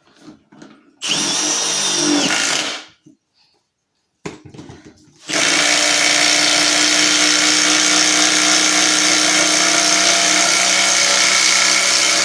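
Standard (non-hydraulic) Milwaukee impact driver hammering a lag bolt into wood without a pilot hole: a short burst about a second in, then a long steady run from about five seconds in as it drives the bolt fully down.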